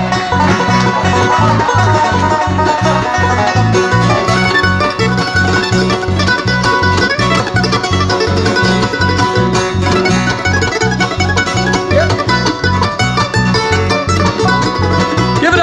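Bluegrass band playing live: banjo, mandolin, fiddle and acoustic guitar over a steady bass beat.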